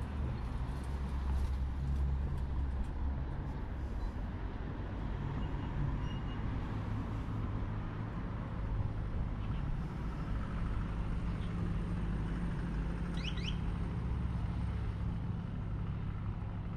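Street traffic: a continuous low rumble of passing road vehicles. A couple of brief high chirps come through faintly about thirteen seconds in.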